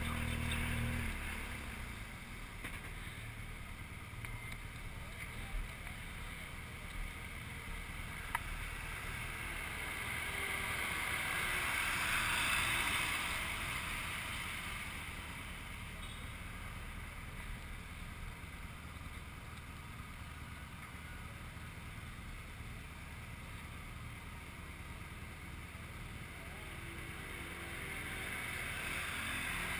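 Town-street traffic noise around a stopped motorcycle, with a vehicle passing, loudest about twelve seconds in. A low motorcycle engine note is heard briefly at the start and drops away about a second in as the bike pulls up.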